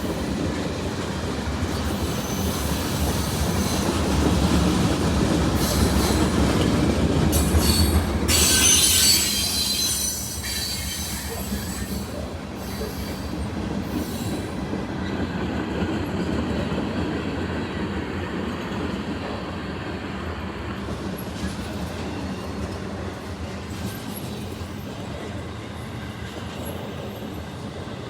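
Freight train cars rolling past with their wheels clattering on the rails. A burst of high-pitched wheel squeal comes about eight or nine seconds in, then the sound settles to a steadier, slightly quieter run of cars.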